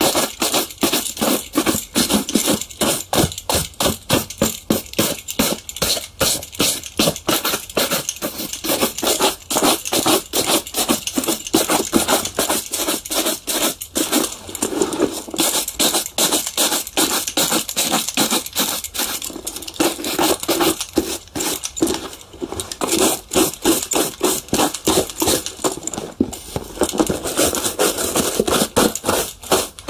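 Shoe polishing on leather: quick, rhythmic scrubbing strokes, one after another without a break.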